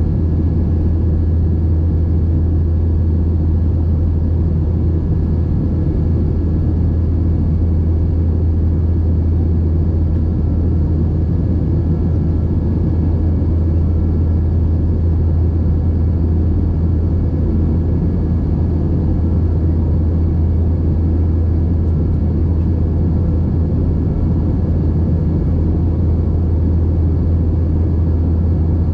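Airliner cabin noise in flight: the steady drone of the engines and airflow, a deep even hum with a few faint, steady high tones above it.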